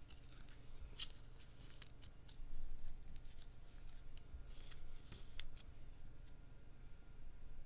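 Baseball cards being handled on a table: scattered light clicks and rustles, louder for a moment about two and a half seconds in, over a steady low hum.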